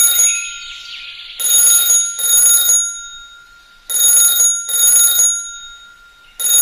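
Electronic ringing in a double-ring pattern: two short high-pitched rings, a pause of about two seconds, then two more, repeating three times, like a telephone ringing. A faint steady tone sounds under it.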